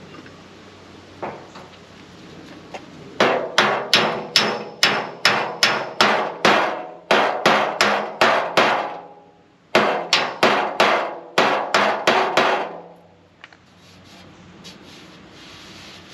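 A hammer knocking a dent out of a 1991 Camaro front fender from the inside. About fourteen ringing sheet-metal blows come at roughly two and a half a second, then after a short pause about eight more.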